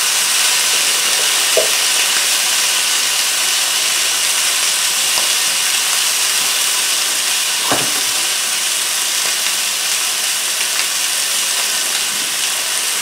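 Seasoned chicken pieces sizzling steadily in hot oil in a dutch pot.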